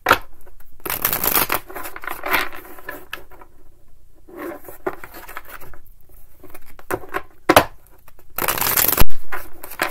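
A deck of tarot cards being shuffled by hand: papery rustling, scraping and slapping in irregular bursts, the loudest a sharp burst near the end.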